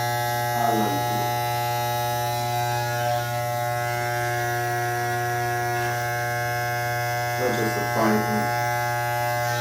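Electric hair clippers running with a steady buzz while the hair unit is cut and styled.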